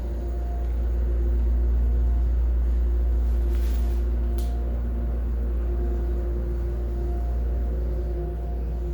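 Elevator cab moving: a steady low hum from the running drive, with faint wavering tones above it. A short hiss and a click come about three and a half seconds in.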